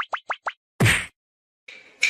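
Cartoon-style sound effects: a quick run of short rising blips stops about half a second in, followed by a single loud plop or thump just before the middle. Light rhythmic tapping starts near the end.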